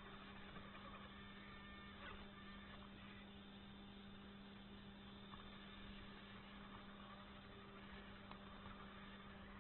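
Faint steady electrical hum with a low hiss, as picked up by a micro RC crawler's on-board camera, with a few faint ticks.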